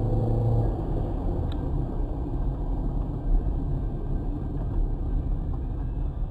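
Steady low rumble of a car on the move: engine and road noise as picked up by a dash cam.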